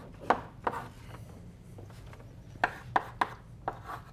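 Chalk writing on a blackboard: sharp taps of the chalk striking the board, each trailed by a short scratchy stroke. There are two near the start, a lull, then a quicker run of about five taps in the second half.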